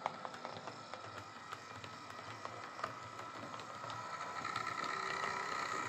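Heljan OO gauge Class 17 model diesel locomotive running on the track: a steady whine from its motor and gears, with faint irregular clicks from the wheels on the rails. The whine grows louder and higher-toned about four and a half seconds in.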